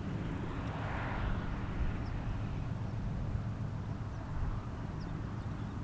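Steady low engine rumble of a ship under way, with a brief rushing swell about a second in.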